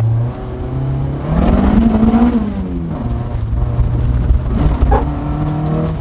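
The Honda CR-V's swapped K24 four-cylinder engine revving as the car accelerates, its note climbing about a second and a half in and dropping back by three seconds, over a low rumble.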